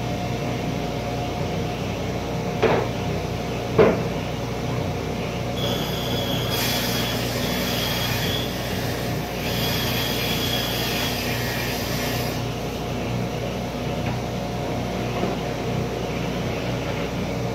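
A woodworking saw running steadily, with two sharp knocks a few seconds in. Then a higher-pitched hiss and whine lasts about seven seconds, with a short break midway, as the blade cuts through a board panel.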